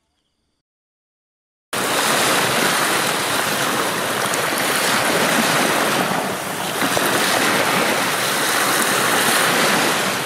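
Sea surf washing onto a sandy beach, a steady rush of water that cuts in suddenly after about a second and a half of silence.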